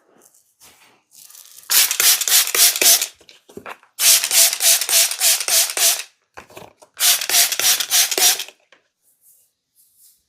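Hands rubbing rapidly during a massage: three bursts of quick back-and-forth strokes, about five a second, each stroke giving a short squeak.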